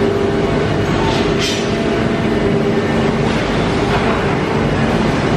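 Heavy industrial machinery running steadily: a loud hum with steady tones over a rumbling clatter, with two short hisses a little over a second in.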